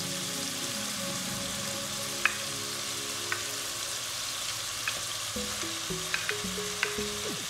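Shrimp, chicken liver and onion sizzling in oil in a non-stick pan while sliced chayote is slid in from a plate, with a few light clicks of spatula and pieces between about two and seven seconds in. Soft background music plays underneath.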